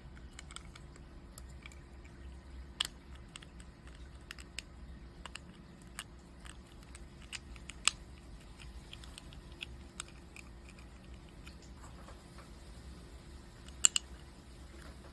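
Plastic LEGO bricks being handled and pressed together: scattered small clicks and ticks, with sharper snaps about 3 and 8 seconds in and a quick double snap near the end.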